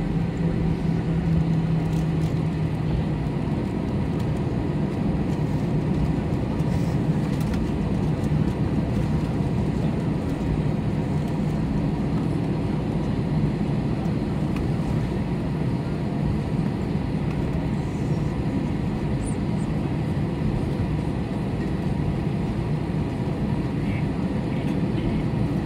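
Cabin noise of an Airbus A321 taxiing, heard from a window seat over the wing, with its CFM56 turbofans at idle: a steady low rumble. A low hum stands out over it and drops back about three seconds in.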